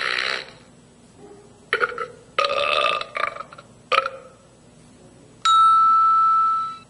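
Handheld prank sound-effects machine playing a recorded burp effect, several short belches in a row, then a steady electronic tone held for about a second and a half.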